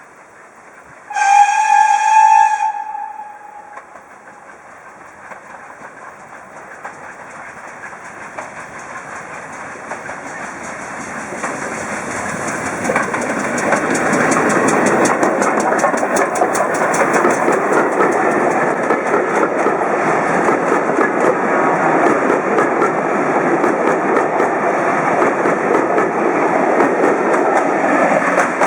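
Heritage steam locomotive whistles once, a single tone for about a second and a half. Then the train comes closer, growing louder for about ten seconds, and runs past with its wheels clicking over the rail joints.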